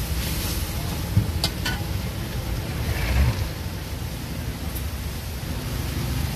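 Sauce sizzling in a steel wok as a metal spatula stirs it, with a few sharp clicks of the spatula against the pan about a second and a half in. A steady low rumble runs underneath.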